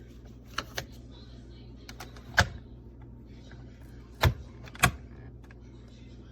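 A couple of light clicks, then three sharp knocks spread over a few seconds: hard plastic parts of a single-serve pod coffee maker being handled and set down.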